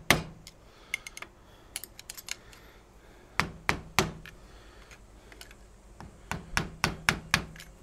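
Light hammer taps on a screwdriver pressing on the washer over a new fork seal, driving the seal down into a Honda CL350 fork leg. The short, sharp taps come in irregular groups, a few harder ones about halfway through and a quick run of taps near the end.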